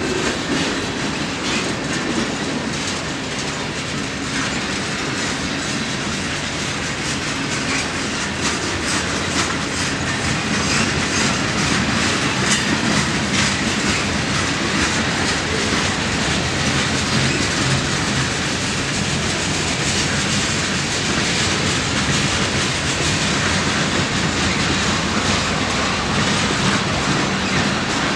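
Freight train of boxcars and tank cars rolling past, its steel wheels clattering steadily over the rail joints with a continuous rumble.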